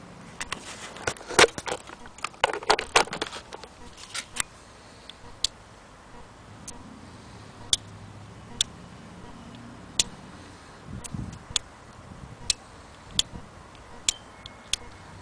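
Sharp clicks and knocks: a quick cluster in the first three seconds, then single ticks about once a second.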